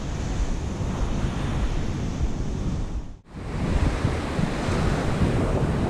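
Surf breaking on a beach with wind buffeting the microphone, a steady rushing noise that cuts out for a split second about three seconds in.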